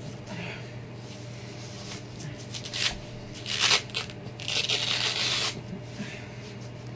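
Hook-and-loop straps on ankle weights being ripped apart while the weights are readjusted: three short tearing rasps about three to five and a half seconds in, the last lasting about a second.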